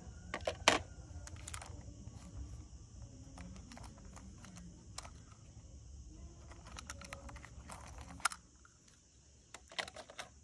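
Small die-cast toy cars clicking and clacking against one another and a hard plastic storage tray as they are picked up and set into place, in scattered light taps with one sharper clack just under a second in.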